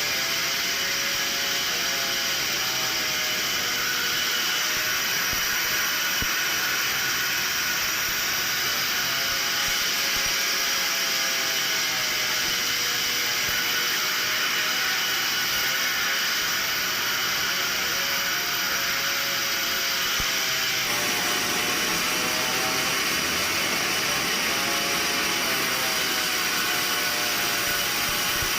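Sawmill machinery running steadily, with a whine that wavers slowly up and down in pitch over a constant loud mechanical noise; the sound changes abruptly about two-thirds of the way through.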